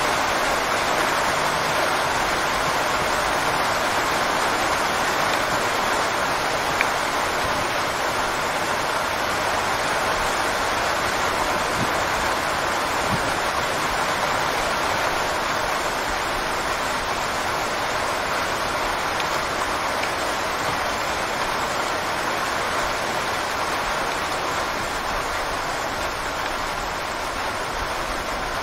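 Steady rain: an even, continuous hiss of falling rain that holds the same level throughout.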